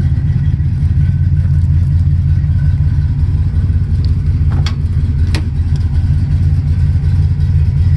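Plymouth 'Cuda's 383 V8 idling with a steady low rumble. Two short, sharp clicks come about halfway through.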